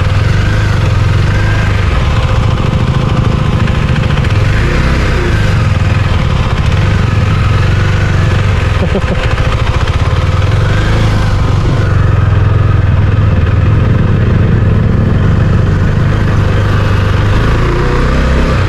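Husqvarna Svartpilen 401's single-cylinder engine running, loud and steady.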